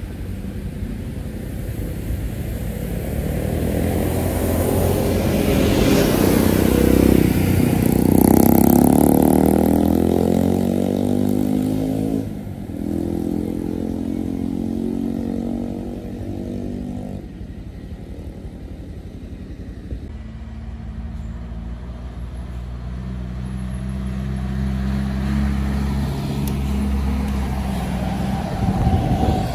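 Coach bus diesel engines passing on a hill road: the first bus's engine swells, is loudest about eight seconds in with its pitch dropping as it goes by, then fades. A second coach's engine builds up and passes close near the end.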